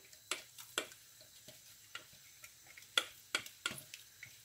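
About a dozen irregular, sharp clicks and light taps as a thick blended tomato-and-onion sauce is poured and scraped from a plastic jar into a pan of oil.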